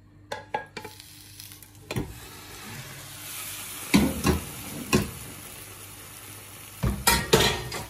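Egg-and-potato omelette sizzling in a hot frying pan, the sizzle starting about a second in as it goes back into the pan flipped over. Several sharp knocks of the pan and plate on the stove come through it.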